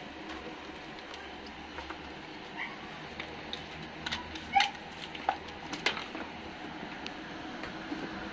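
Scattered clicks, taps and rustles of a scooter's wiring harness, its plastic connectors and corrugated sheathing being handled, over a steady low hum. The clicks bunch up midway, with the sharpest a little past halfway.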